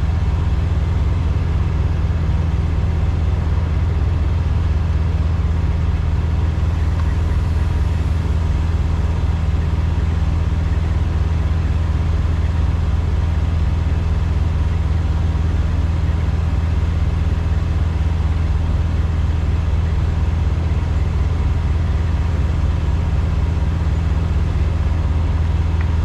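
Diesel engine of a Peterbilt semi truck running steadily, a low, even drone that does not change.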